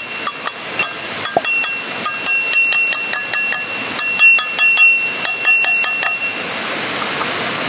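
Rapid light hammer taps driving steel stakes into the top of a log stove: each strike clinks, and the stakes ring with a steady high metallic tone. The tapping stops about six seconds in, leaving a steady background hiss.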